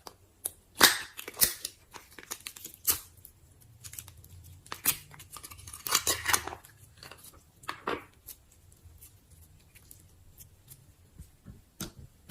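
Slime being poked and stretched by hand, giving irregular sticky clicks and crackles, loudest about a second in and again around six seconds in.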